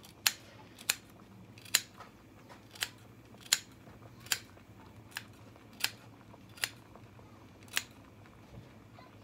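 Kitchen scissors snipping fresh thyme, about ten sharp snips a little under a second apart.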